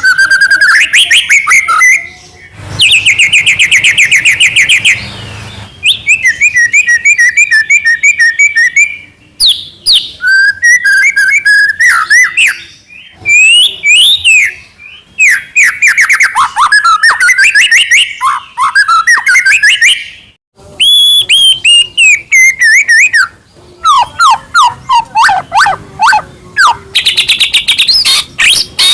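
White-rumped shama singing loudly: a varied song of fast repeated notes, trills and rising and falling whistles, delivered in phrases a second or two long with brief pauses between them.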